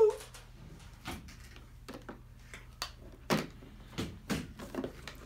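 Hard plastic toys knocking and clattering on a plastic high-chair tray: irregular short knocks, the loudest a sharp one at the very start, with a quicker run of knocks in the second half.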